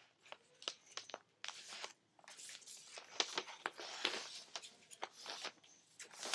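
Sheet of paper being folded and creased by hand, with repeated short crinkles and rustles.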